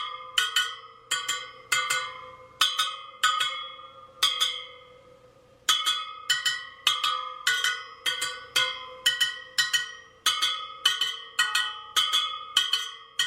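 Spokes of a freshly laced Sur Ron Light Bee front wheel plucked one after another, about twenty in all at roughly two a second with a short pause midway, each giving a bright metallic ping that rings briefly. Plucking the spokes checks their tension by pitch: they should all ring alike at a fairly high pitch, and a dead-sounding one is too loose.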